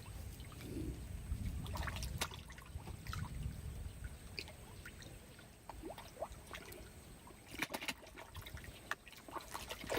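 Water trickling and splashing, with scattered small splashes and clicks at the surface and a low rumble in the first few seconds.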